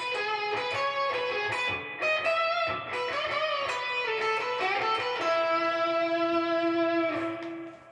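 Electric guitar playing a single-note melodic lick drawn from the E major scale, with string bends partway through. It ends on one long held note that stops shortly before the end.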